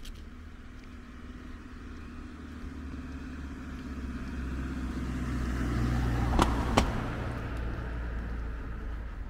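A car driving past on the road: its engine and tyre noise swells to a peak about six to seven seconds in, then fades. Two sharp clicks come at the loudest point.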